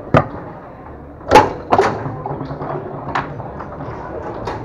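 Tornado foosball table in play: about five sharp knocks of the ball being struck and of rods and players hitting, the loudest about a second and a half in.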